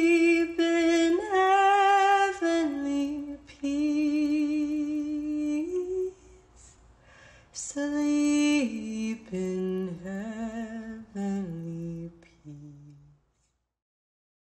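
A woman's voice singing a slow melody in long held notes with vibrato, the pitch stepping lower in the second half, breaking off about a second before the end.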